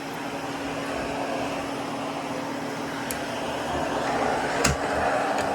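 Hoover Constellation Model 84 canister vacuum running steadily: a motor whoosh with a low hum. About four seconds in the sound grows a little louder and brighter, and there is a short knock just before the end.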